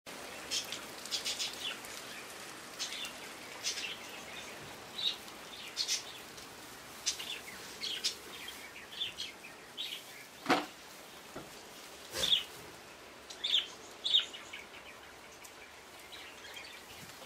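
Small birds chirping in short, repeated calls over a steady background hiss, with two sharp knocks a couple of seconds apart around the middle.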